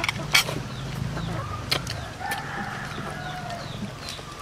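A rooster crowing in the background, one long call in the middle, with a few sharp clicks of spoons against plates.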